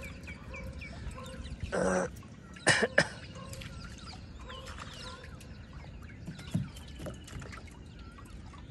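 Birds calling with faint, repeated short chirps. About two seconds in comes one short, louder pitched call, followed a little under a second later by two sharp knocks in quick succession.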